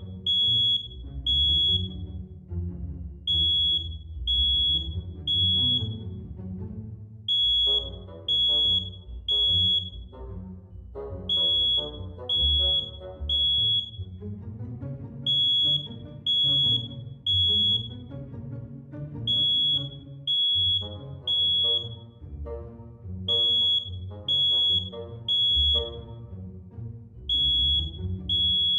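Smoke alarm going off in the three-beep pattern: three short high beeps, a pause, then again, about every four seconds. This temporal-three pattern is the signal that smoke has been detected. Background music plays underneath.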